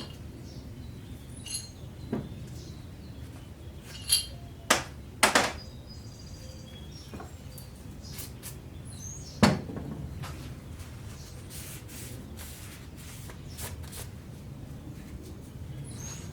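Metal engine parts being handled: crankshaft bearing shells and tools clinking and knocking on a bench. There are about six sharp clicks, some with a short metallic ring, the loudest near the middle, over a steady low hum.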